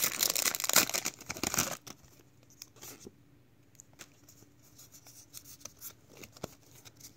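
A foil Pokémon card booster pack wrapper being torn open and crinkled for the first couple of seconds. After that it goes much quieter, with a few faint taps as the cards are handled.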